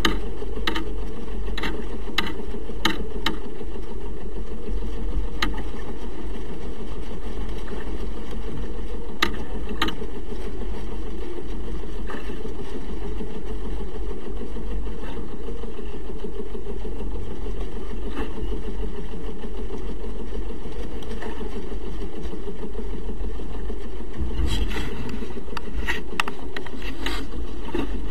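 Steady muffled rumble of wind and sea on a sailing yacht, with scattered sharp knocks from rigging and gear, several in quick succession near the end.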